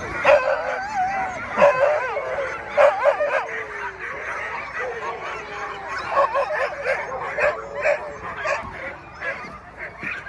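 A team of harnessed sled dogs barking, yipping and whining over one another, excited and eager to run before a race start.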